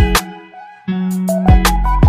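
Background music: a plucked melody over a bass line and drum beats, which drops away briefly near the start and comes back in just under a second in.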